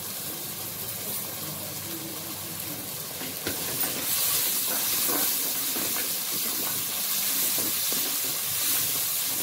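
Chopped onions frying in oil in a clay pot, a steady sizzling hiss, stirred with a wooden spatula. About three and a half seconds in the hiss grows louder as fresh mint leaves go into the hot oil and are stirred through.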